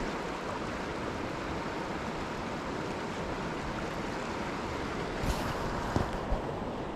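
Risen river water rushing steadily, with three short knocks in the last two seconds.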